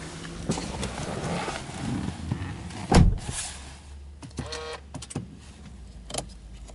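Handling and rustling noises inside a car, then a heavy thump about three seconds in as the car door shuts. About a second later comes a brief rising electric motor whine as the ignition is switched on, over a low steady hum.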